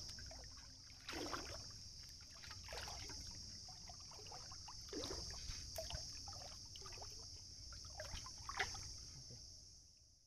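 Water splashing and sloshing as a hand scoop net and crab line are worked through shallow river water, in irregular small splashes. A steady high hiss runs underneath and fades out near the end.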